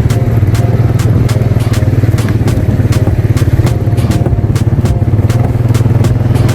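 ATV engine running steadily under way, with frequent sharp clicks and rattles over it.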